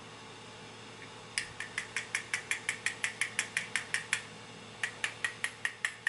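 A rapid, even run of small ringing clicks, about six a second, lasting nearly three seconds. After a short pause there are six more, like a ratchet or small spring-loaded mechanism being worked.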